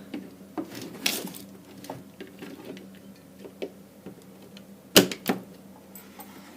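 Plastic clicks and knocks from handling a Xiaomi MiJia power strip and plugging into it, with two sharp clicks about five seconds in.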